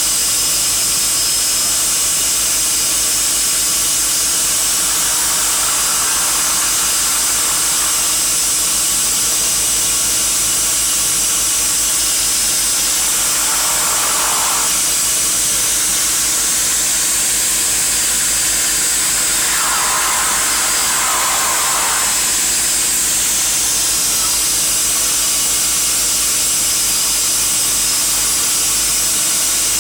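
Seaplane's turboprop engines running steadily as it taxis on the water, heard from inside the cabin as a loud, even hiss over a steady low hum.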